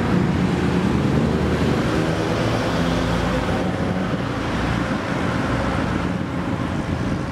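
Cars driving on a road, heard from a moving car: a steady engine drone with road noise and wind buffeting the microphone.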